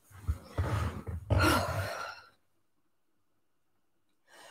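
A woman's long, breathy sigh of delight over the first two seconds, with low bumps as she moves, then quiet.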